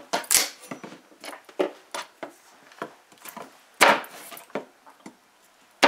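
Large kitchen knife cutting through a raw cassava root on a wooden cutting board: irregular knocks of the blade against the board mixed with scraping, the loudest knock about four seconds in.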